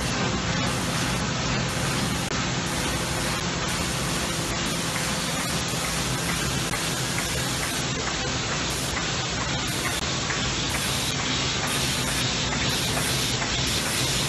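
Komori Lithrone LS429+CX four-colour sheetfed offset press running: a steady, even rush of machine and air noise with a low hum underneath.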